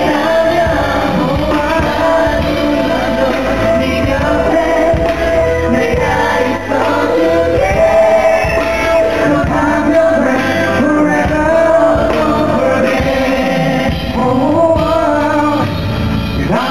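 Live concert music: a male pop singer singing into a headset microphone over a live band, with long held notes, heard through the hall's sound system from the audience.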